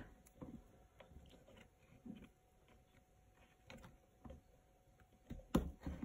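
Faint, scattered light clicks and taps from a small plastic deli cup being handled and a paintbrush working inside it. A sharper tap comes near the end.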